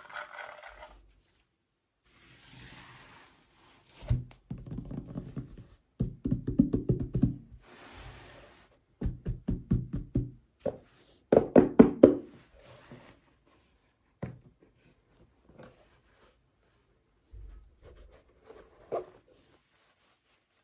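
Hands handling small plastic toy packaging: bursts of rapid clicking and tapping with a couple of short crinkling rustles, then a few scattered taps.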